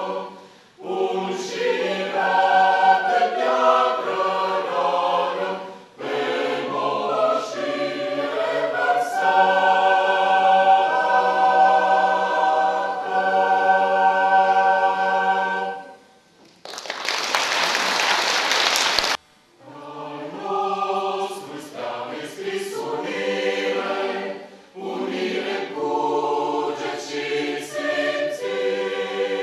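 Mixed choir of men's and women's voices singing in phrases separated by short pauses, with a long held chord near the middle. A little past halfway the singing stops for a loud, even hiss of about two and a half seconds that cuts off sharply, and then the choir sings on.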